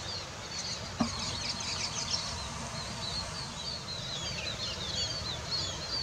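Small finches, pin-tailed parrotfinches, giving many short, high chirps that overlap and come in quick succession, over a steady outdoor hiss. A single click sounds about a second in.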